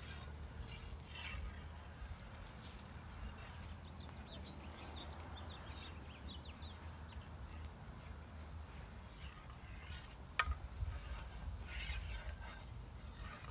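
Wind rumbling on the microphone, with a small bird chirping quickly for a couple of seconds around the middle. About ten seconds in comes a single sharp clack of wooden practice swords striking, followed by light rustles.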